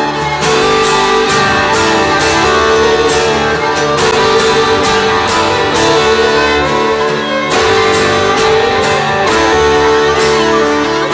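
Background music with a steady beat and sustained instrumental tones.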